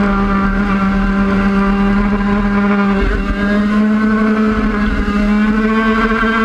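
Engine of a 50cc race motorcycle, heard onboard, held at steady high revs through the corners, with a short break in the note about three seconds in.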